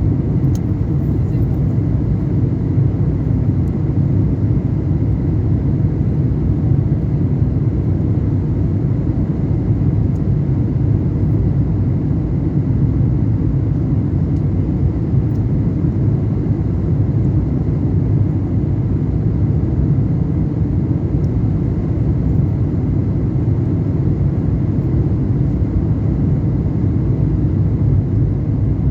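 Airliner engines and airflow heard from inside the passenger cabin: a steady, low rumble that holds even throughout.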